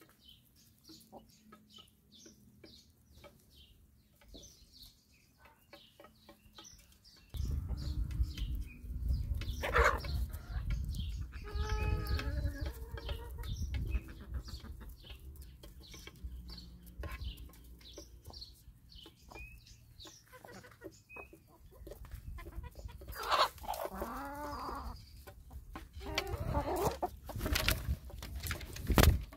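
A flock of hens clucking and calling as they peck at food on a plastic tray, with quick beak taps at the start. About seven seconds in, a low rumble sets in on the microphone and stays under the clucking.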